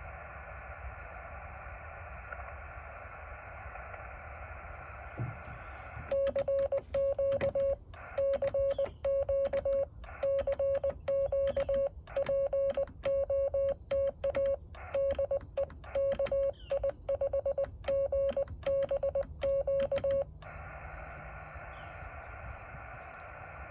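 Yaesu FT-817 sending Morse code (CW). A steady sidetone of about 600 Hz is keyed on and off in dots and dashes for about fourteen seconds, with sharp clicks at the start and end of each element. Before and after the sending, the receiver plays wide static hiss, as the owner says its CW filter is not working.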